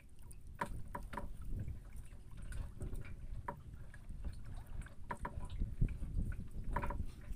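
Steady low rumble of wind and water around a small wooden boat, with scattered short clicks and brief squeaks from a fishing longline being hauled in by hand over the side.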